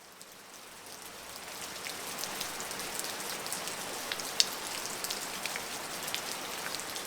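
Steady rain falling, with scattered louder individual drops, fading in over the first couple of seconds and then holding steady.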